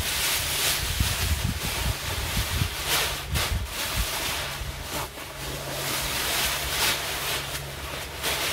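Thin white packing sheets, windbreak fabric and clear PVC window panels crinkling and rustling in uneven bursts as they are handled and pulled apart, over a low rumble of wind on the microphone.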